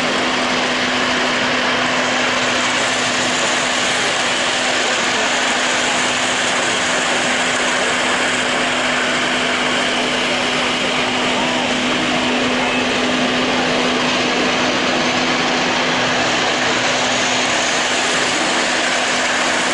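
Electric model trains running around a layout: a steady rumble of wheels on the track and whirring motors, with a steady low hum underneath.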